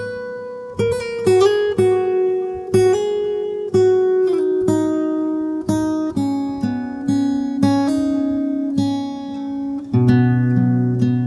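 Acoustic guitar playing a slow, calm instrumental: single notes are picked one after another and left to ring over held lower notes. A deeper bass note enters near the end.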